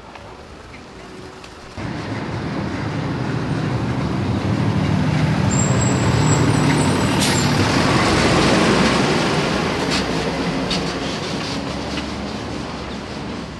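A large engine running close by. It cuts in abruptly about two seconds in, swells to a peak midway, then fades, like a heavy vehicle passing.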